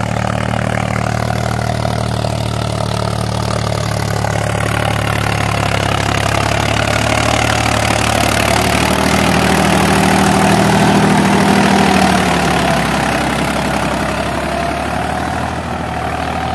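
Mahindra 265 DI XP Plus tractor's three-cylinder diesel engine pulling steadily under load, with a nine-tine cultivator pressed deep into the soil. It grows louder as the tractor comes close, about ten seconds in, then fades as it moves away.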